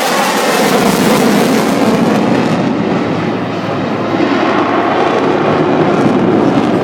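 Loud, steady jet engine noise from a fighter jet in display flight. Its hiss is brightest in the first two seconds or so and turns duller as the jet moves away.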